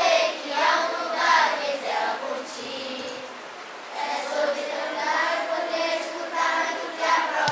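Children's voices singing together, with a lull about a third of the way through before the singing picks up again.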